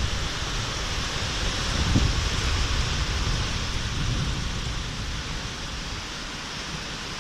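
Thunderstorm: a steady hiss of rain and wind, with a low rumble that is strongest in the first few seconds and dies away toward the end.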